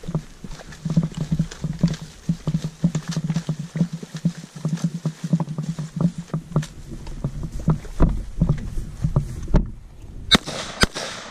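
Rustling and scraping of a soldier's gear and body dragging through grass during a low crawl. Near the end come two sharp M4 carbine shots about half a second apart, each with a ringing echo.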